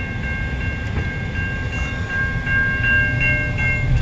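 CN local freight train rumbling on the rails as it moves off. Above the rumble, a ringing of several high tones pulses on and off a few times a second.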